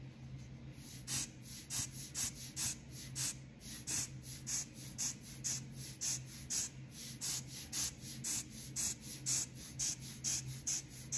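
Rubber hand air-blower bulb squeezed again and again, puffing short hisses of air at about two or three a second to push wet alcohol ink across the paper. A low steady hum runs underneath.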